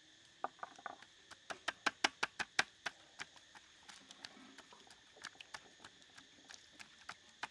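Hands patting and rubbing a wet, salted raw fish fillet on a stainless steel tray: a quick run of wet slaps, about six a second, for the first few seconds, then scattered softer pats.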